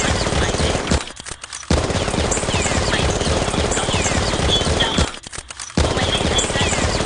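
Gunfire sound effect: rapid automatic fire, breaking off twice for under a second, about a second in and again about five seconds in.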